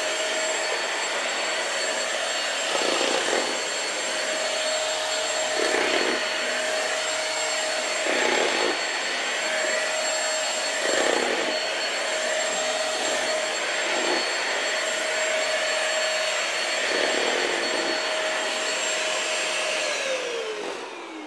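Red upright stick vacuum cleaner running, a steady high whine over the rush of air, its sound shifting every two or three seconds as it is pushed back and forth across the floor. Near the end the motor is switched off and winds down, falling in pitch.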